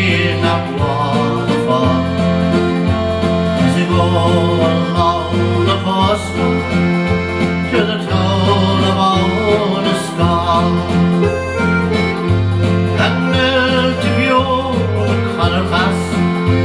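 Country-style music: a song with a steady, pulsing bass beat under the melody.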